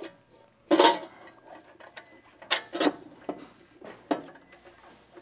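Metal parts knocking and clinking as a tractor frame-extension piece and its bolts are handled and fitted: about half a dozen sharp knocks, the loudest a brief scraping clank about a second in, some with a faint high ring.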